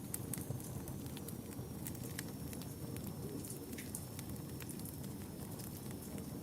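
Wood fire burning in a fireplace: a steady low rumble of flames with frequent small crackles and pops.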